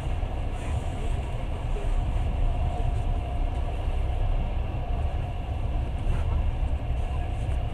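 Passenger train running along the track, heard from inside the carriage: a steady low rumble with a faint even hum above it.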